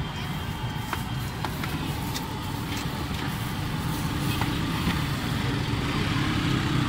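Street ambience at a roadside food stall: a steady rumble of traffic, with scattered light clicks and taps from the cooks' work at the griddle.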